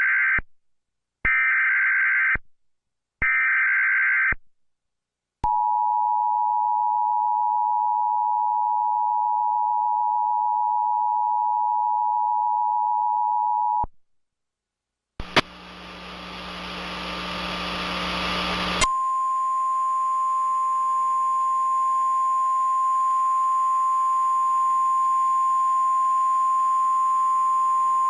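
Emergency Alert System tones for a tornado warning. First the buzzy data bursts of the digital header, three about a second apart with the first starting just before, then the two-note attention tone held for about eight seconds. After a short gap and a few seconds of static hiss, a single steady weather radio alert tone sounds for about ten seconds.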